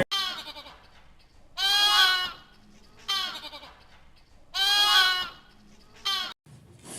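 Livestock bleating: five wavering calls, two of them long and loud, the other three shorter and fainter.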